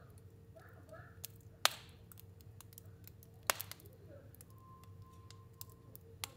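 Stove fire burning and crackling: irregular sharp pops and snaps, with two louder ones about a second and a half in and about three and a half seconds in, over a low steady hum. A faint thin whistle sounds briefly past the middle.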